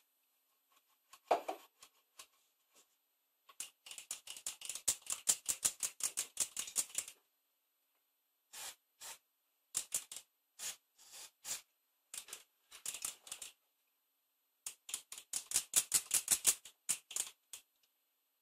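Rapid runs of light, sharp clicks at about seven a second: two longer runs and several short ones, with a single duller knock about a second in.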